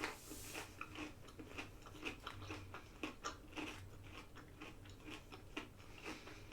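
A person chewing and biting food close to the microphone, with many short irregular clicks.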